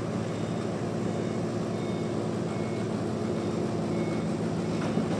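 Sawmill machinery running steadily: a low, even mechanical hum, with a few faint short high pips.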